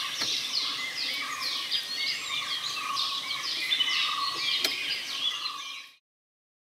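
Dense chorus of forest birds: many quick falling chirps and whistles overlapping, over a steady higher call, with a few faint clicks. It fades out sharply near the end.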